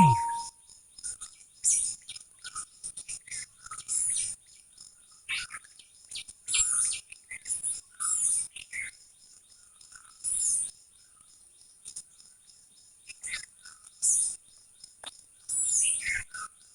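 Small wild birds chirping: short, high calls scattered every second or so, some with quick falling notes, with quiet gaps between them.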